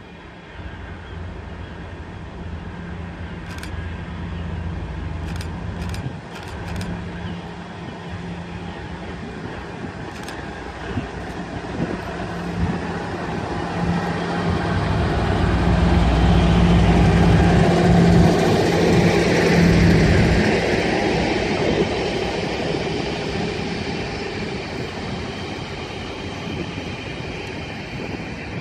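A train passing through the station, growing louder to a peak about two thirds of the way through and then fading as it moves away, with a steady low hum running underneath.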